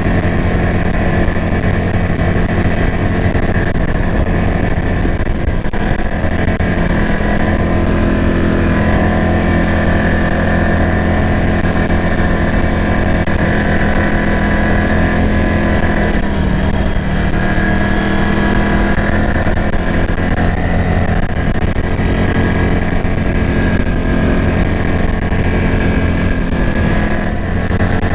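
ATV engine running steadily at low trail speed as the quad crawls along a woods trail, its pitch rising a little about a third of the way in and dropping back past halfway.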